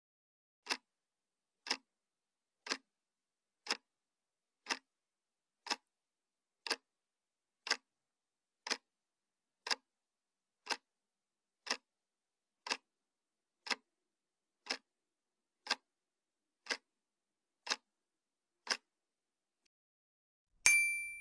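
Clock-tick countdown sound effect, nineteen sharp ticks one a second, then after a short pause a bright chime near the end, marking the answer reveal.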